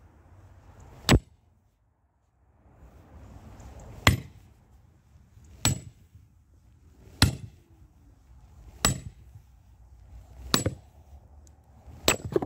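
Sledgehammer striking a metal splitting grenade (cone-shaped splitting wedge) driven into an ash log: seven sharp, ringing clinks, the first followed by a pause of about three seconds, then a blow about every one and a half seconds.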